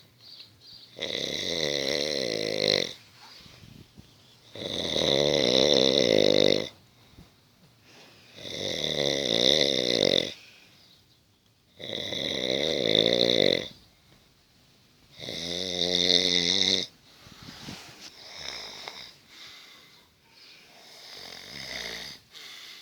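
A sleeping person snoring very loudly: five long snores of about two seconds each, coming roughly every three and a half seconds, then two softer, quieter snores near the end.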